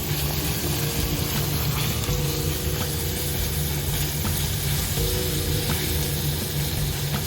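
Food frying in a pot, a steady sizzle, with background music of held notes underneath.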